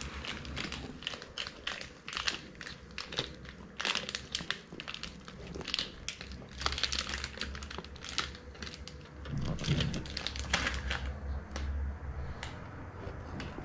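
A block of hard yellow cheese rasped against a flat metal hand grater in many quick, irregular scraping strokes.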